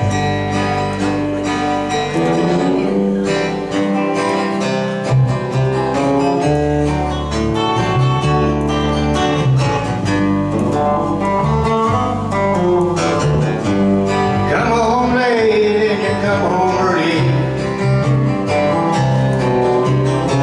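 Recorded acoustic country music led by guitar over a steady bass. A wavering lead melody comes in about fourteen seconds in.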